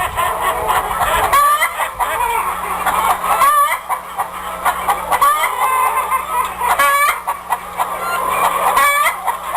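A flock of chickens clucking and calling, many overlapping calls one after another, over a faint steady low hum.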